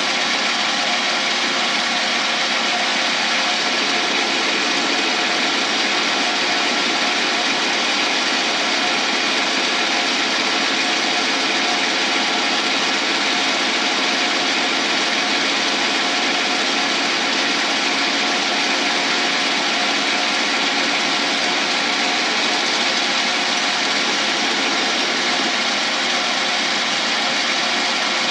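Lathe running steadily while its cutting tool takes a light first pass along a cast shift-knob blank.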